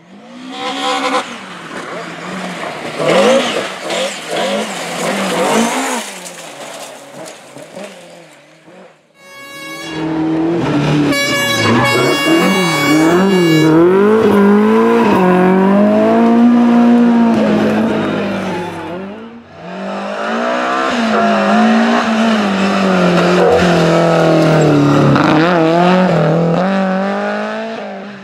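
BMW M3 E30 Group A rally car's 2.3-litre four-cylinder engine at full throttle in three separate passes, each swelling and fading. The revs rise and drop sharply through gear changes and lifts.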